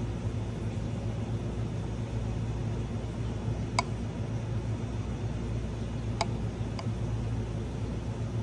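Steady low machine hum, with three or four short light clinks about four, six and seven seconds in.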